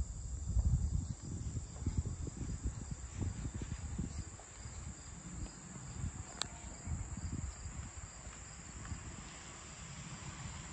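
A steady, high-pitched insect chorus trilling throughout, over irregular low rumbling on the microphone that is strongest in the first few seconds. A single sharp click comes about six and a half seconds in.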